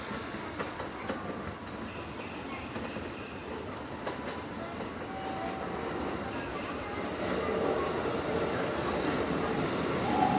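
Keikyu Line train running into the station, growing steadily louder, with wheels clacking over the rails and a steady whine coming in from about halfway.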